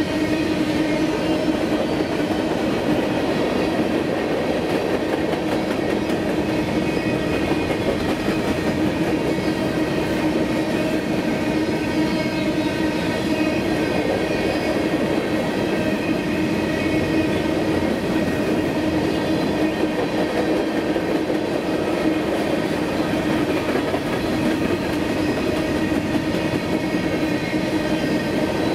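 Freight train of covered hopper cars rolling past, steel wheels running on the rails in a steady, continuous rumble with a steady droning tone.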